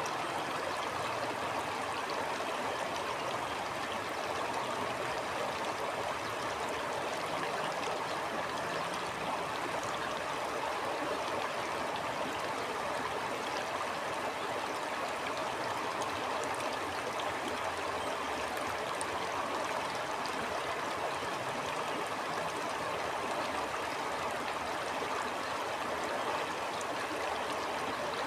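Stream flowing steadily: an even, unbroken rush of water that neither swells nor fades.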